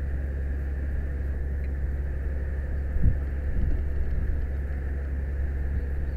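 Fire truck aerial ladder in operation: the truck's engine and ladder hydraulics running as a steady low hum, heard from the ladder tip as it rotates. Wind buffets the microphone in short gusts about three seconds in.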